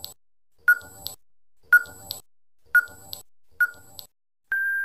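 Quiz countdown-timer sound effect: four short beeps about a second apart, then one longer, steady beep at a slightly higher pitch near the end, marking the end of the countdown.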